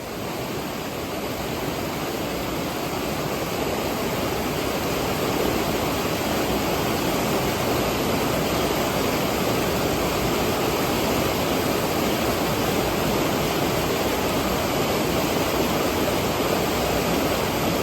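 Waterfall: a steady rush of falling water, growing a little louder over the first few seconds and then holding level.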